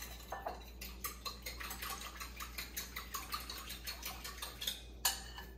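A spoon stirring brown sugar into warm water in a ceramic bowl, clicking lightly and quickly against the bowl, about six clicks a second, and stopping near the end.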